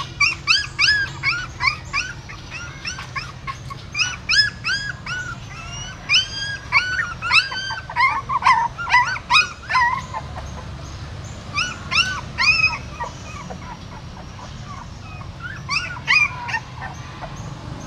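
Young puppies whimpering and yelping in many short, high-pitched cries that rise and fall in pitch. The cries come in quick runs with pauses between, and are busiest in the middle.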